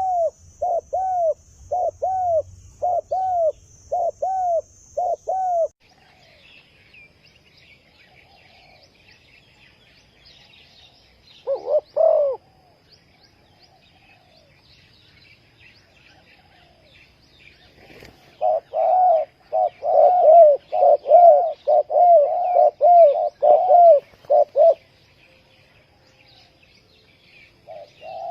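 Spotted dove cooing: runs of short, arched coo notes, about two a second at first, a short group near the middle, then a faster run later on, with other small birds chirping faintly behind from about six seconds in.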